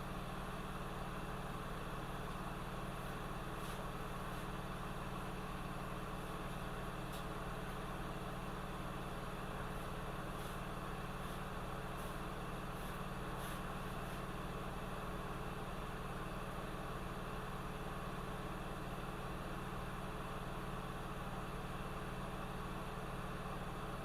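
Steady mechanical hum with a few steady tones under a constant hiss, unchanging throughout, with a few faint high ticks.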